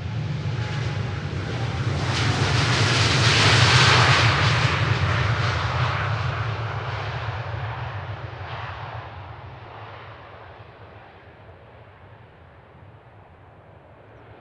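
Jet engines of a KLM Boeing 787-10 at takeoff power as the airliner passes, a low rumble with a rushing roar that swells to its loudest about four seconds in, then fades steadily as it moves away.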